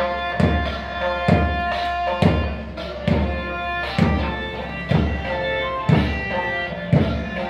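Music with a steady drum beat, a little under one beat a second, and sustained melodic notes over it, serving as the rhythm for a group P.T. drill.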